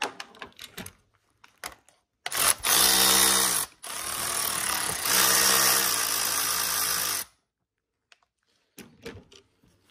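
A power tool spinning out the oil cooler bolts on a BMW N55 engine: it runs for about a second and a half, stops briefly, then runs for about three and a half seconds more, its motor pitch dipping and picking up as it loads. Light clicks of tool handling come before and after.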